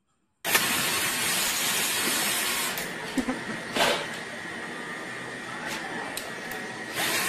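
Cordless drill running, spinning an apple against a peeler blade, heard as a steady hiss that starts suddenly about half a second in, with a faint whine from the motor and a few sharp clicks.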